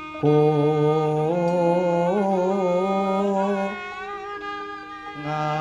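Javanese wayang kulit dalang singing a suluk, a slow chanted mood song. He holds long notes with wavering, ornamented pitch, entering a moment in, easing off after about three and a half seconds and coming back near the end, over quiet instrumental accompaniment.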